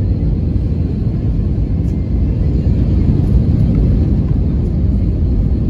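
Cabin noise inside an Airbus A320neo coming in to land: a steady low rumble of the engines and rushing air, swelling slightly about halfway through.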